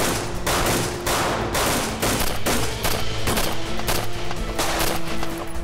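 Sustained automatic gunfire, many rapid shots from several guns at once, over dramatic background music.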